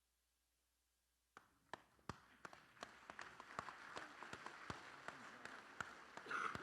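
Audience stirring in an auditorium: after near silence, scattered claps, knocks and footsteps start suddenly about a second and a half in, over a rising murmur of many voices.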